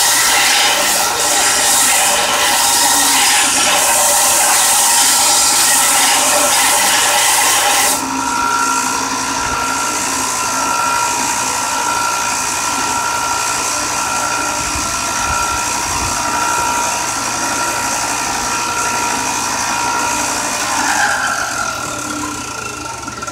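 Belt sander grinding a steel knife blade: a loud abrasive hiss of steel on the belt for about eight seconds. Then the blade comes off and the sander runs on alone with a steady whine, winding down with a falling pitch near the end.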